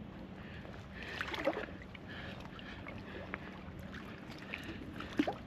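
Handling noise aboard an aluminium fishing boat: irregular knocks and rustles, with a steady low hum underneath.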